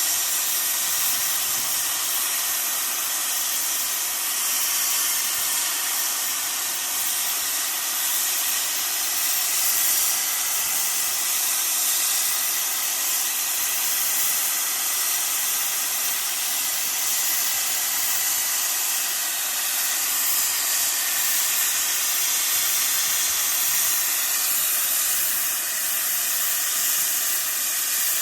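Steam venting from a steam locomotive: a loud, steady hiss with no chuffing rhythm.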